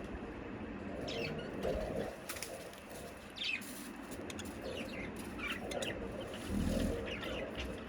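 Budgerigars chirping in short, scattered high chirps, with a low rustling flutter about two-thirds of the way in.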